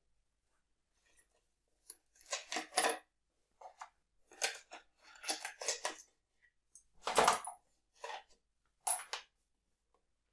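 Coins rattling and clinking inside a small card box as a hand rummages in it and then tips it out into a palm, in a string of short jingling bursts.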